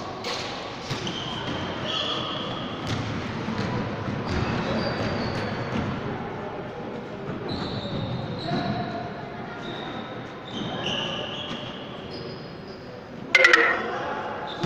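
Sneakers squeaking on a hardwood gym floor and a basketball bouncing during play, with players' voices echoing in the large hall. Near the end, a short loud blast of a referee's whistle.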